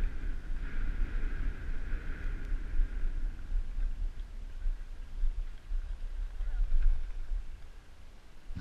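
Wind buffeting a GoPro's microphone during a ski descent, a fluctuating low rumble, with the hiss of skis sliding on packed snow. It dies down about seven and a half seconds in as the skier slows to a stop.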